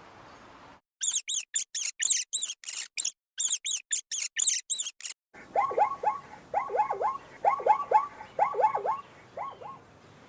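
A rapid series of very high-pitched animal squeaks, then, after an abrupt cut about five seconds in, a run of lower, falling chirps in quick clusters from a different animal.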